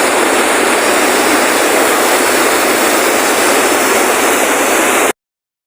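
A loud, steady rushing noise that cuts off abruptly about five seconds in.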